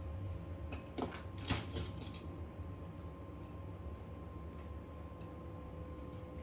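Small hand tools clicking and tapping against phone parts during repair work: a quick cluster of sharp clicks about a second in, then a few faint ticks, over a steady low electrical hum.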